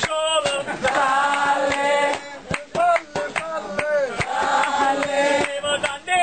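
A man chanting in a drawn-out, sing-song voice, with short sharp knocks or claps among the phrases.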